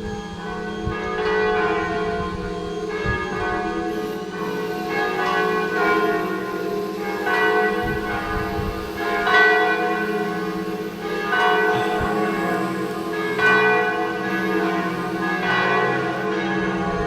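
Church bells of the Basilica of the Holy House ringing for noon: a fresh strike about every two seconds over a continuous ringing hum.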